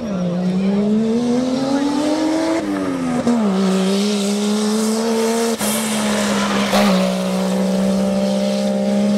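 Off-road rally jeep's engine revving hard under full acceleration. Its pitch rises, drops sharply about three seconds in as it changes gear, then holds a steady high note as it passes.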